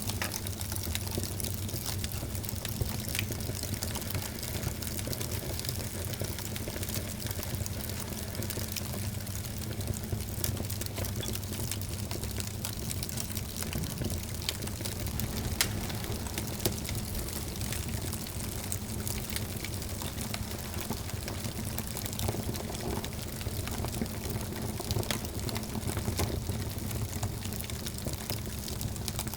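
Wood fire burning in a fireplace: a steady hiss and low rumble of the flames with frequent small crackles and pops, one sharper pop about halfway through.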